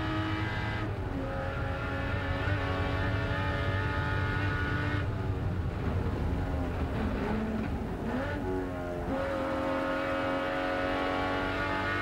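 Jaguar XJS V12 race engine heard from inside the cockpit, held at high revs under load. About halfway through the note breaks up and its pitch dips and then climbs again, then it settles back into a steady high-revving pull.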